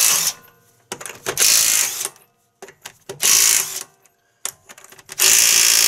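Cordless impact wrench hammering lug nuts loose, in about four short bursts with pauses between them.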